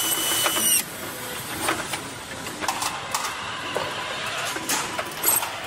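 Automated multi-spindle nut runner whining with steady high tones as it tightens chassis bolts, cutting off suddenly about a second in. It is followed by scattered clicks and clanks of metal.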